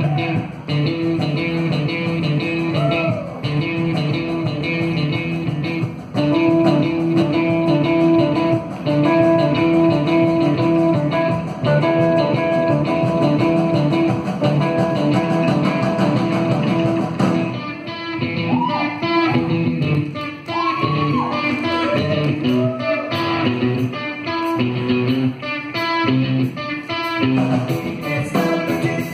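A live rock band playing on stage, heard from the auditorium, with electric guitar out in front over bass, keyboard and drums. About 17 seconds in the low end drops away and sliding guitar notes come to the fore.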